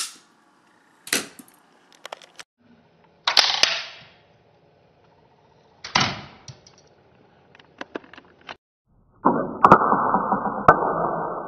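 A LEGO slide-action catapult gun fires with sharp plastic snaps, and its shot knocks into LEGO pieces with small clicks. The shot is heard several times over as replays. From about nine seconds in the last replay comes much slower, as a long, dull clatter.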